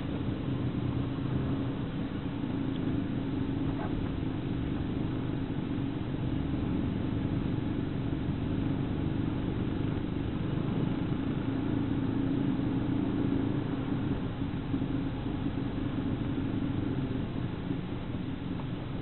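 1999 Pontiac Firebird's 3.8-litre V6 running steadily at light throttle while driving, heard from inside the cabin with road and tyre noise, easing off slightly near the end.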